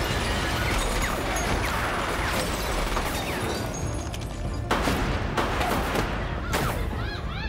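Film soundtrack: music over a dense, loud din. Two sharp bangs come about four and a half and six and a half seconds in, and short rising-and-falling whistles follow near the end.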